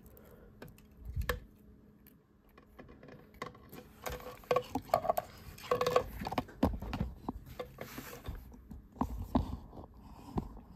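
Jumper wires being plugged into a plastic solderless breadboard and handled: scattered small clicks, taps and rustles, busier in the middle.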